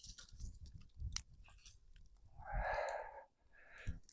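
Dog chewing and crunching on raw meat, faint, with a short breathy noise about two and a half seconds in.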